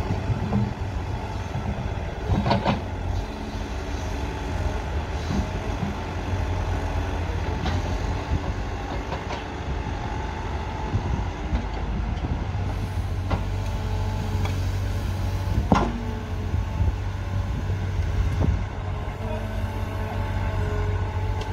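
Caterpillar 315C tracked excavator running steadily at work, its diesel engine and hydraulics droning, with a few sharp knocks as it digs. The loudest knock comes about two-thirds of the way through.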